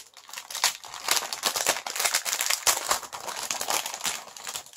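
Thin clear plastic gift bag crinkling as it is handled and pulled open by hand: a dense run of small crackles.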